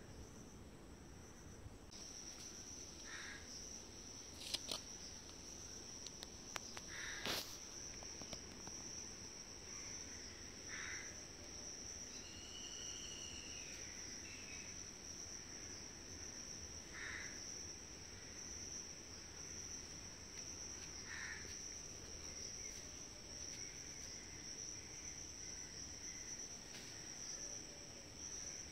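Insects trilling steadily on one high pitch, with short faint calls every few seconds and a couple of sharp clicks in the first third.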